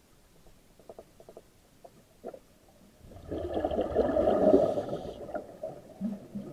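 A seal vocalizing: a few short grunting pulses, then about three seconds in a loud, harsh, drawn-out call lasting about two seconds, followed by a couple of short low grunts near the end.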